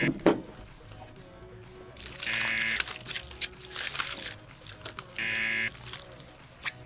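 Game-show buzzer sound effect sounding twice, about three seconds apart, each a short harsh buzz. It marks a strike on the try-not-to-eat scoreboard. Quiet background music plays underneath.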